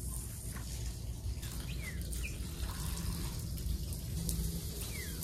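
Garden hose spraying water, a steady hiss, with a few short falling bird chirps.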